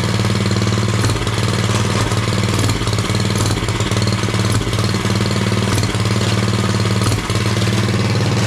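Mini bike's small single-cylinder engine running at a steady speed without revving. The throttle does nothing because the spring on the governor arm is missing, so the engine speed is left to the governor linkage.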